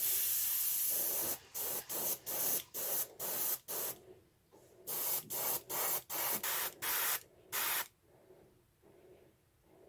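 Airbrush spraying paint onto a wooden fishing lure: one long hiss of air and paint, then about a dozen short spurts as the trigger is pulsed to lay a small dark spot where the eyes will go, stopping near the end.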